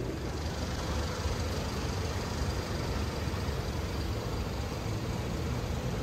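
Steady low rumble with a hiss over it: street ambience beside an open shopfront.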